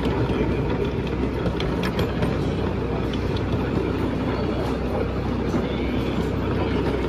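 Small passenger train running along a narrow-gauge track, heard from on board: a steady rumble with a low hum and light clicking from the wheels and cars.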